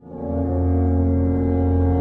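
A deep, loud horn blast sound effect: one low, brassy tone that swells in over the first half second and then holds steady.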